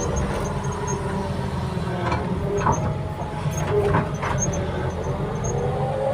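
Engine of a heavy earthmoving machine running steadily, with squealing tones that slide up and down in pitch and a few metallic clanks in the middle, as the machine works.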